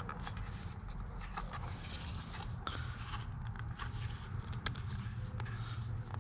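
Plastic parts of a solar flood light being handled and slid together: scattered light clicks and scrapes over a steady low hum.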